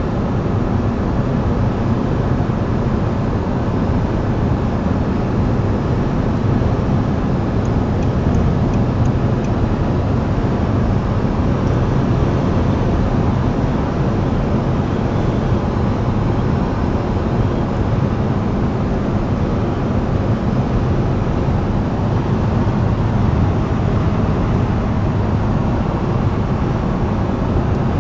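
Steady in-cabin drone of an Audi R8 V10 cruising at an even speed: a low engine hum mixed with road and wind noise, with no revving.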